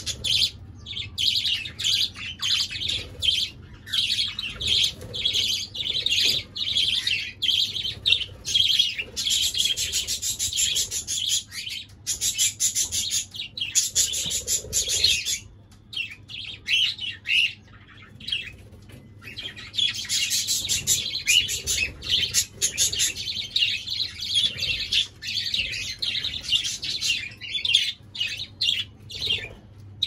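A colony of budgerigars chirping and warbling together in a dense, continuous chatter of high, rapid chirps, thinning out briefly about halfway through.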